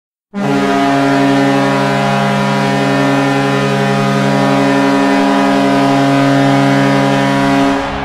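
Vancouver Canucks goal horn sounding one long, steady blast, starting just after the beginning and cutting off near the end.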